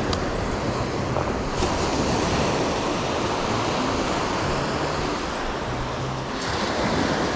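Small waves breaking and washing up a sandy beach, one wash swelling about a second and a half in and another near the end.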